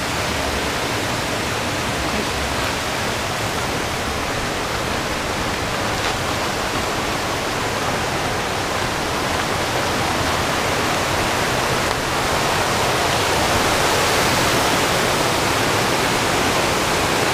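Small creek waterfall, water rushing steadily over rocks, getting a little louder about two-thirds of the way through.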